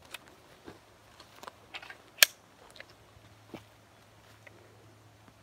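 Scattered light clicks and knocks over a faint low hum, with one sharp, loud click about two seconds in.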